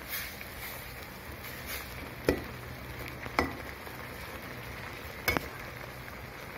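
Maggi noodles simmering in a wok with a steady hiss. A metal ladle knocks sharply against the side of the pan three times while the noodles are stirred and sauce is spooned over the egg.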